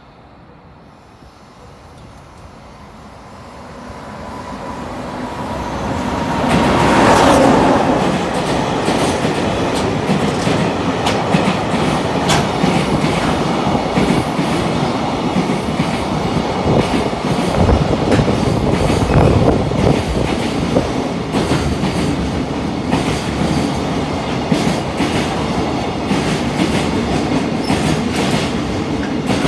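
Freight train passing through a station without stopping. Its noise builds over the first several seconds as it approaches, with a thin steady tone on top, and peaks about seven seconds in. A long train of wagons then rolls by with continuous clickety-clack of wheels over the rails.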